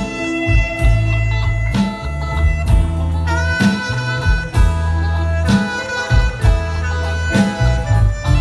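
Live band playing an instrumental: a saxophone carries the melody over electronic keyboard and a drum kit keeping a steady beat. About three seconds in, the saxophone slides up into a long held note.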